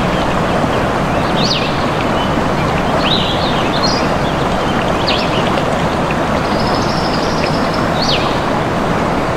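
A stream rushing steadily, with birds giving short, sharp chirps over it every second or so.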